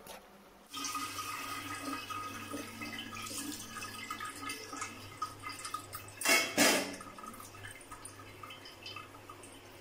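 Boiled noodles and their cooking water poured from a steel pot into a perforated steel colander, the water splashing and draining through the holes. It starts just under a second in, is loudest at about six seconds, then trails off.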